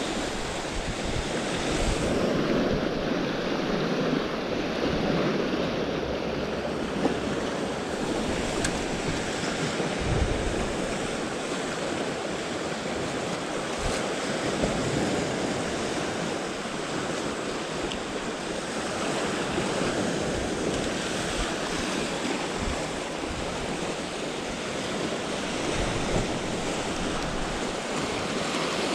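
Sea waves washing steadily against the shore, rising and falling in level, with wind buffeting the microphone.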